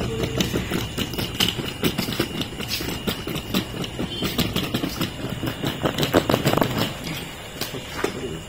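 Wheeled suitcase pulled over interlocking brick pavers, its small wheels rattling and clacking irregularly across the joints, along with footsteps. The rattling dies down about seven seconds in.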